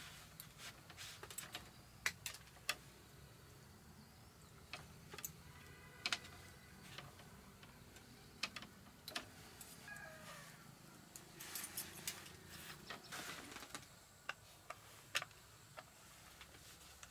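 Scattered light clicks and taps, irregular and a few seconds apart, from hand tools working at electrical wiring on a bamboo post.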